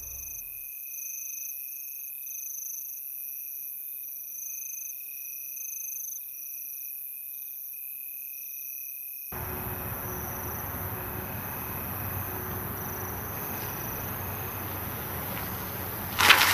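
Crickets chirping in steady high-pitched pulsing trills. About nine seconds in a wider outdoor hiss joins them, and just before the end comes a single sudden loud hit.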